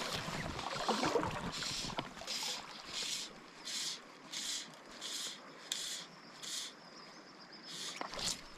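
Fly reel click ratchet buzzing in short, evenly spaced bursts, about eight in a row, roughly one and a half a second.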